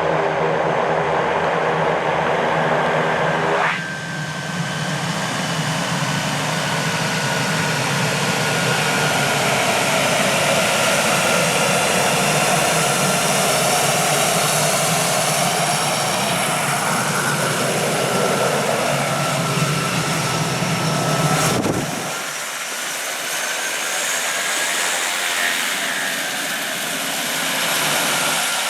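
Air Tractor AT-602 crop duster's Pratt & Whitney PT6A-60AG turboprop engine and propeller running at power, a steady turbine whine over the propeller drone, swelling and fading as the plane passes. The sound changes abruptly twice, about four seconds in and about two-thirds through.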